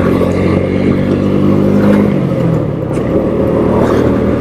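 Keeway Superlight 125's small V-twin engine running under way, heard from the rider's helmet with wind noise over it. The engine note dips slightly a little over two seconds in as the revs ease.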